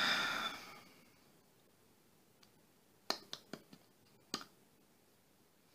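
Soft mouth clicks and lip smacks while pausing to think: a quick run of four about three seconds in and one more a second later, over quiet room tone.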